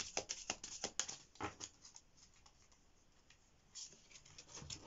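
A deck of Romance Angels oracle cards being shuffled by hand: a quick run of soft card flicks and slaps for about a second and a half, a short lull, then more card handling near the end as a card is pulled out.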